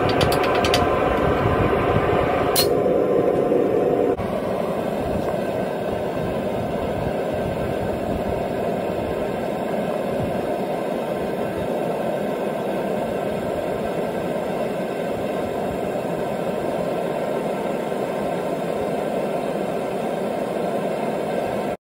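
Propane-fired metal-melting furnace burner running with a steady rushing noise. There are a few light clicks right at the start and one sharp clink about two and a half seconds in. The noise drops a little about four seconds in and cuts off suddenly near the end.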